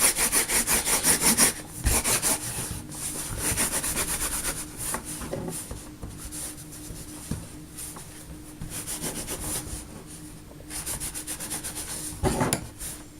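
Hands rapidly rubbing and rolling Play-Doh against a work surface, several quick strokes a second in repeated spells with short pauses.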